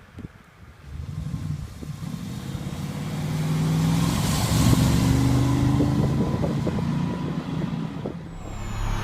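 Chrysler 440 big-block V8 running through a dual 2.5-inch exhaust with AP mufflers and Magnaflow resonators. The engine note comes in about a second in and rises in pitch and loudness to a peak around halfway as the car accelerates, then eases slightly.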